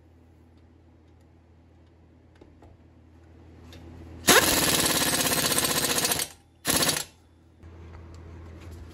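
ACDelco pneumatic impact wrench hammering as it runs a brake caliper bolt tight: one burst of about two seconds, then a short second burst.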